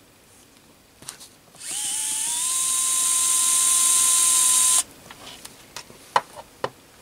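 ES121 electric screwdriver's small motor spinning a homemade pin chuck with a fine drill bit. It starts about a second and a half in, rises quickly to a steady high whine, runs for about three seconds and cuts off suddenly. Near the end come a couple of light clicks as the tool is laid on a wooden table.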